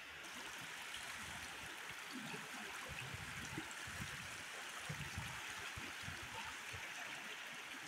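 Rain-swollen stream in flood, rushing and splashing over rocks: a steady rush of water with irregular low rumbles underneath.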